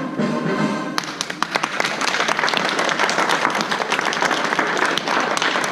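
Orchestral routine music ends about a second in, and an audience breaks into applause, many hands clapping steadily.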